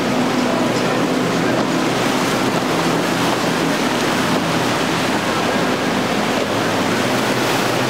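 Surf and wind buffeting the microphone, with the low drone of twin Yamaha 250 hp outboard motors on an Intrepid center-console boat running through rough water. The engine drone is clearest in the first few seconds.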